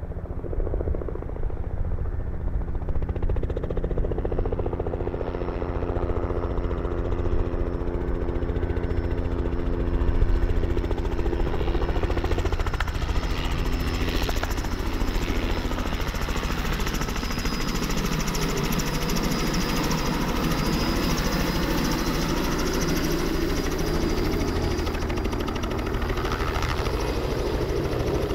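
Robinson R66 helicopter's main rotor beating steadily with its turboshaft engine running as it flies in low and hovers. A higher, brighter turbine and rotor noise comes in about halfway through.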